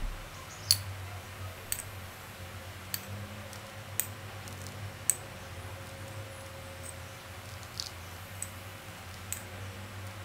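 Sharp light clicks of a metal teaspoon, about one a second, as crushed biscuit crumbs are spooned onto a cake top, over a low steady hum.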